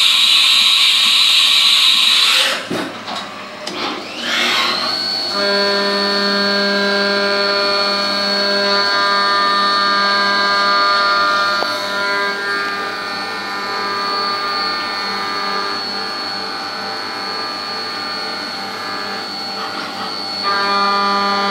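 Haas Minimill CNC milling machine: a loud hiss for the first two seconds or so, then, about four seconds in, the spindle's whine rises in pitch as it spins up. It settles into a steady high whine with several lower steady tones as the end mill cuts the mild steel plate under flood coolant.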